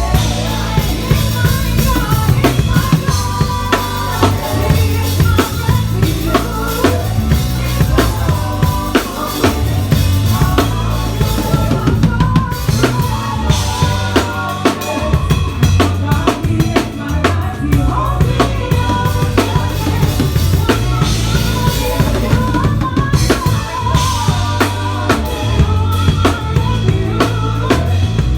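Live church band playing, with the drum kit upfront: a busy pattern of kick drum, snare and rimshots over a moving bass line and other pitched instruments.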